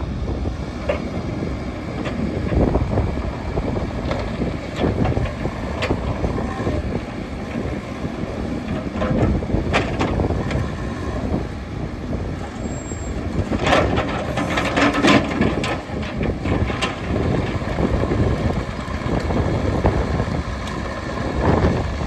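Bobcat E85 excavator's diesel engine running steadily, with occasional sharp metallic knocks, a cluster of them about two-thirds of the way through.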